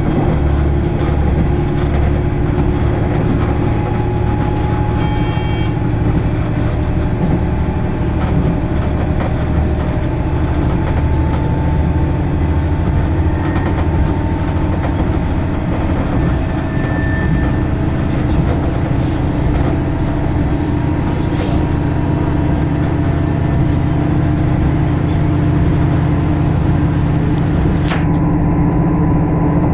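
A KiHa 110-series diesel railcar running at speed, heard from inside the car. A steady engine drone, its tones rising slowly, sits over continuous wheel and rail running noise.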